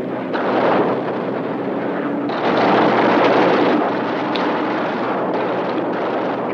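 Battle sound effects: a steady drone of aircraft engines under heavy rumbling blasts like flak or gunfire. The blasts swell loudest about half a second in and again from about two and a half to nearly four seconds.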